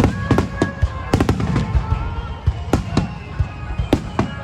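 Fireworks display: a rapid, irregular barrage of sharp bangs, many overlapping, over a continuous low rumble.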